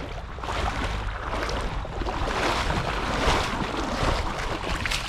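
Steady rushing noise of moving creek water.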